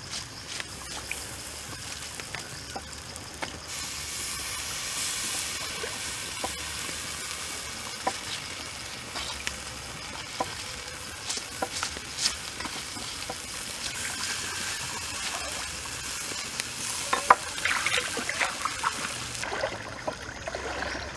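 Juices and basting sauce dripping from a spit-roasted whole chicken onto hot charcoal, sizzling steadily with scattered crackles and pops. A denser run of sharper pops comes about three-quarters of the way through.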